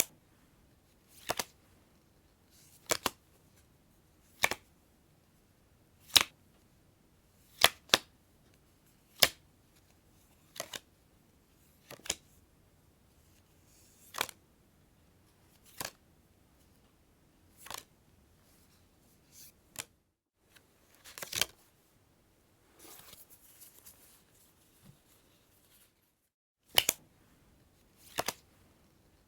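Playing cards handled one by one: a sharp, brief snap roughly every second and a half, some doubled. About two-thirds through comes a few seconds of soft rustling, followed by more snaps.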